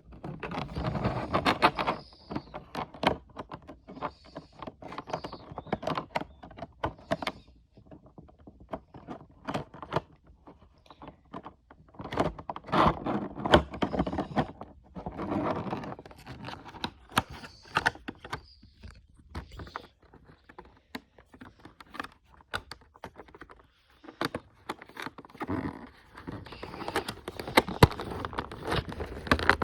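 Model plane packaging being handled and opened: cardboard and plastic rustling and scraping, with frequent small knocks and clicks.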